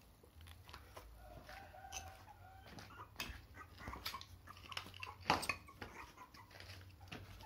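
Young puppies whimpering and squeaking in thin, wavering whines, over scrapes and clicks of handling and movement, with a louder knock about five seconds in.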